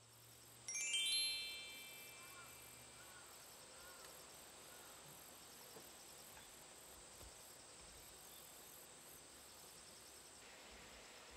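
A chime sound effect: a quick descending run of bell-like tones about a second in, ringing out over about a second. After it, a steady chorus of insects outside, with a constant high tone.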